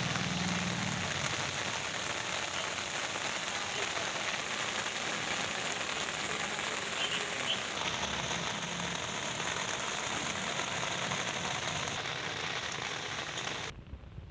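Steady rain falling, a dense even patter of drops, which drops off abruptly near the end.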